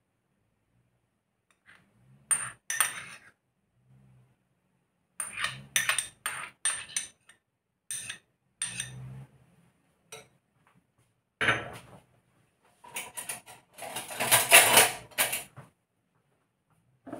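Spoon and bowls clinking and scraping in short bursts as food is scraped from a small ceramic bowl into a glass bowl, then a longer, louder run of clinking and scraping near the end as the spoon works in the glass bowl.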